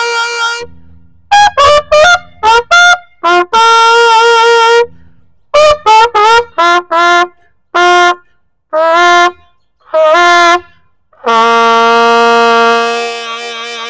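Solo trumpet playing a slow melody: groups of short notes between long held ones, closing on a long held note about three quarters of the way in that slowly fades away.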